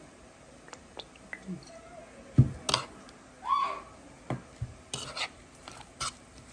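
A metal spoon stirring and scraping through grapefruit segments in a ceramic bowl, knocking against the bowl several times. The loudest clink comes about two and a half seconds in.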